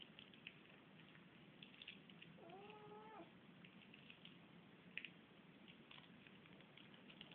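A cat meows once, faintly: a single call about a second long, about two and a half seconds in, rising at the start and then held level. Faint scattered clicks are heard around it.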